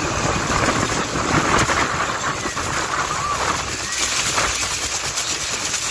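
Continuous roar of Niagara's Horseshoe Falls and the churning river at its base, heard from a boat close to the falls, with wind buffeting the microphone. It swells a little about a second in.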